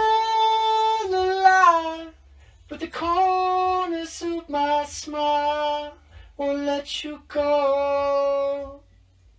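A man singing a vocal take into a studio microphone with no accompaniment, in a high register. Five phrases of long held notes step down in pitch, broken by short pauses and sharp 's' sounds.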